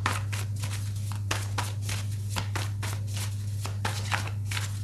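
A deck of tarot cards being shuffled by hand: a run of quick, irregular card flicks and slaps. A steady low hum runs underneath.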